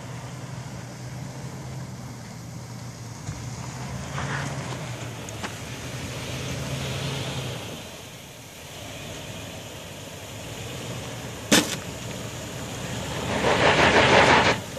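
Toyota 4Runner's engine running steadily at low revs as the SUV crawls over rock ledges, with a single sharp knock about two-thirds of the way in. Near the end it gets much louder: the engine revs up and the tyres spin and scrabble on dirt and rock, then it drops away suddenly.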